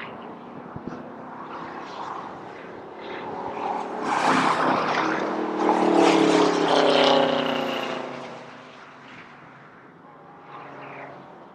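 A Pontiac Firebird race car's engine at speed, passing close by: it grows loud about four seconds in, peaks, and fades with a falling pitch after about seven seconds. Fainter engine noise from other cars on the track is heard before and after the pass.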